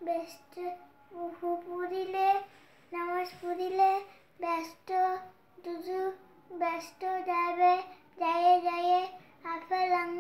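A boy's voice chanting a waz (Islamic sermon) in a sing-song melody, holding steady notes in short phrases with brief breaks between them.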